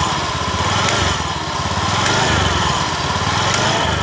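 Honda Beat eSP scooter's single-cylinder engine running with the CVT cover off, revved up and down about once a second, with a rough rattle from the clutch bell as the clutch takes up. The clutch shoe linings are worn away, so the shoe's bare metal catches the clutch bell when the scooter starts to move.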